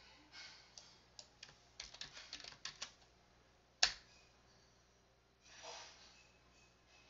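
Computer keyboard keys tapped in a quick run of clicks, then one sharper click of a mouse button about four seconds in, and a brief soft rustle near the end.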